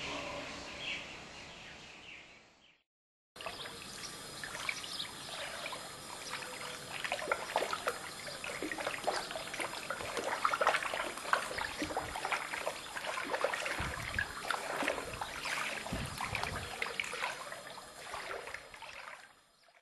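A faint ambience fades out into a moment of silence. Then comes a dense crackling rustle of many small clicks, with a couple of low thumps about two-thirds of the way through, fading away at the end.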